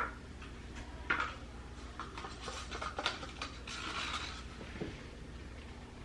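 Leftover acrylic paint being scraped out of a paint cup: a sharp scrape or tap at the start, another about a second in, then a run of small scrapes and clicks from about two to four seconds in.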